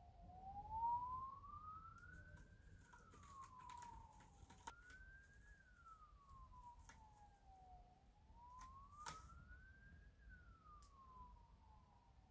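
A faint siren wailing, its pitch sliding slowly up and down about every five seconds, with a few faint clicks.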